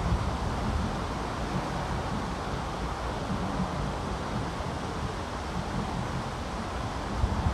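Wind buffeting the microphone: a steady rushing noise with gusty low rumbles.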